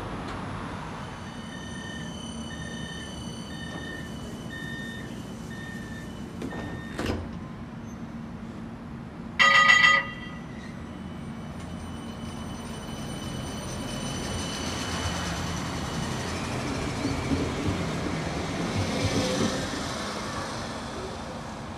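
CAF Urbos light rail tram sounding repeated warning beeps, about two a second for several seconds. The tram's bell then rings a quick ding ding ding, the loudest sound. Near the end the tram rolls past close by, its running noise rising and then fading.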